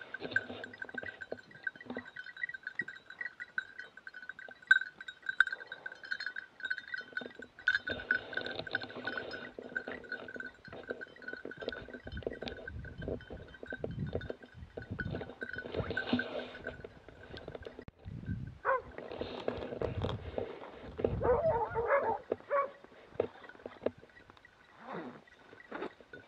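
Small bells on hunting dogs' collars tinkling steadily as the hounds move through dry scrub, over footsteps and brush rustling. Near the end a dog gives a few short yelps.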